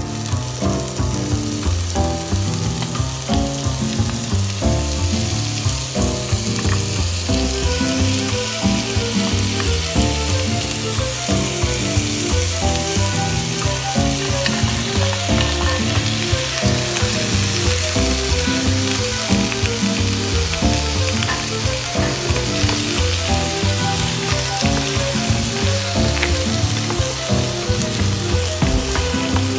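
Seafood (squid, shrimp and green mussels) sizzling in hot oil with garlic and onion in a frying pan, being stirred with a wooden spoon. The sizzle grows louder a couple of seconds in as the seafood goes into the pan, then holds steady.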